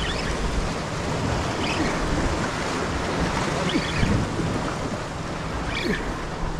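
Surf washing against jetty rocks, with wind buffeting the microphone. The rush stays steady, and a few faint, brief higher sounds come and go over it.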